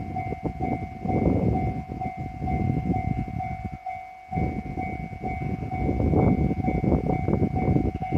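JR East E129 series electric train passing close by, its wheels rumbling and clicking over the rail joints, with a brief lull about four seconds in. A level-crossing warning bell keeps ringing at an even beat over the train.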